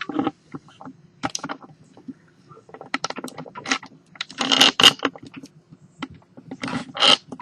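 Irregular clicks, rattles and scrapes of handling as a makeshift camera tripod is set back up, with the loudest cluster of clatter about halfway through, over a faint steady hum.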